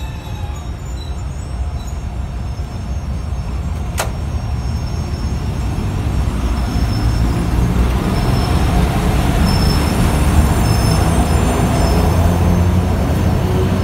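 FS E.656 electric locomotive passing close alongside: a low rumble of wheels and running gear with a steady hum, growing louder as it draws level. A single sharp click about four seconds in.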